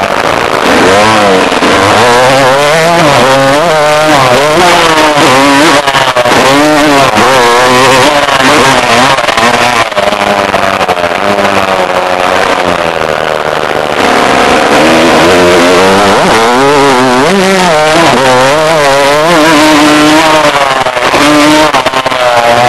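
Dirt bike engine heard from the rider's onboard camera, revving up and falling away again and again as the bike accelerates, shifts and backs off around a motocross track, over a steady rushing noise.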